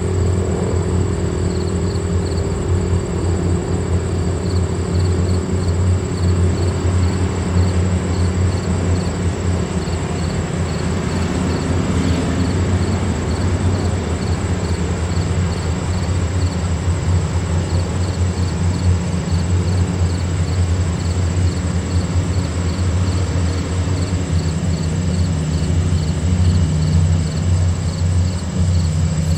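Sentry 10V2T outdoor warning siren, running on only one of its two motors, winding down: a low hum that slowly falls in pitch and fades out over the first ten seconds or so, under a steady low rumble.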